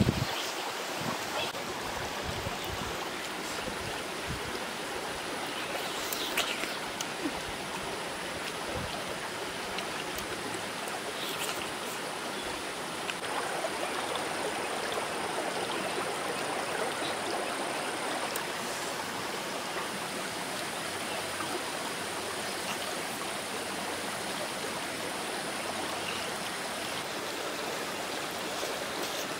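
Small rocky stream flowing steadily, an even rush of running water, with a few brief clicks and knocks in the first seven seconds.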